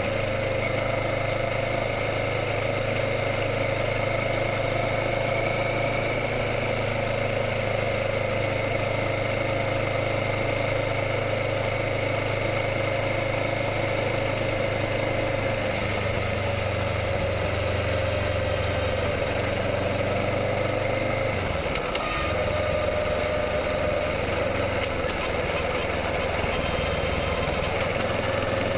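Kawasaki Ninja 650's parallel-twin engine running at a steady, even pitch, with a brief dip and change in pitch about 22 seconds in before it settles again.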